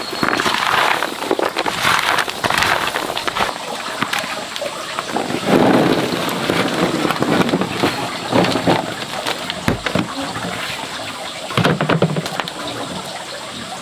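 Crisp fresh fruit slices rustling and pattering against a woven bamboo tray as they are tossed by hand, then sliding and spilling in heavier surges as the tray is tipped to pour them into a flat basket. A single low knock comes near ten seconds in.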